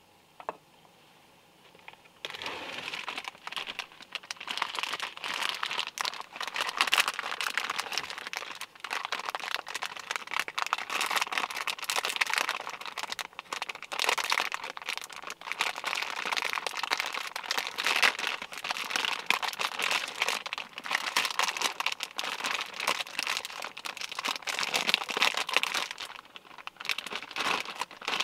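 Plastic wrapper of an instant noodle packet crinkling as it is torn open by hand and the dried noodle block is pulled out. The crinkling starts about two seconds in, runs on with a brief lull near the end, and sounds close in a small enclosed space.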